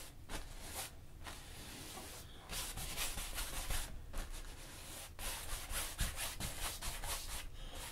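A 2-inch brush swept over an oil-painted canvas in a series of scratchy rubbing strokes with short gaps between them, evening out thick wet mountain paint.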